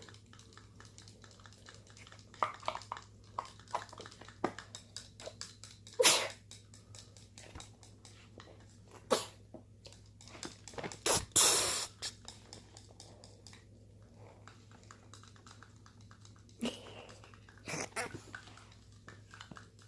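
Homemade slime being stirred and squished: many small sticky clicks, with a few louder squelches. There is a breathy, hissing rush lasting about a second near the middle.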